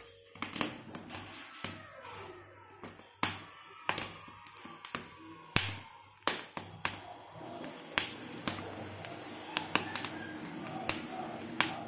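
Corn cobs roasting directly over a gas stove burner: sharp, irregular pops and clicks, sometimes several in a second, as the kernels char and burst in the flame.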